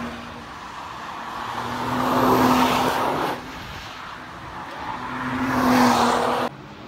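Two cars passing at speed, one after the other: first a Nissan GT-R, its engine note rising to a loud peak as it comes by, then another car's engine swelling to a peak. Each pass cuts off abruptly.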